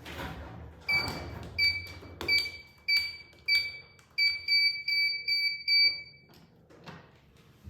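Elevator car control panel beeping as its buttons are pressed. About ten short electronic beeps, each with a click, come at first evenly about two-thirds of a second apart, then faster and almost back to back, as when a floor access code is keyed in.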